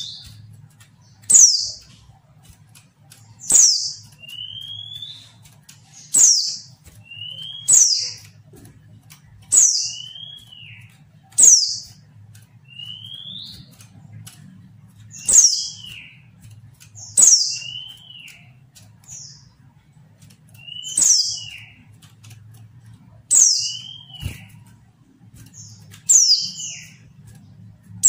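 Female white-eye (pleci) calling: a short call repeated about every two seconds, each a sharp high note sliding down followed by a lower, arched note. This is the female call that keepers play to prompt male white-eyes to answer and sing.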